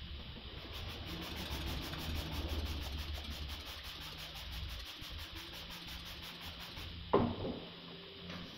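Hand wet sanding of a car's painted boot lid: abrasive paper rubbing over the wet panel. A single sharp knock about seven seconds in.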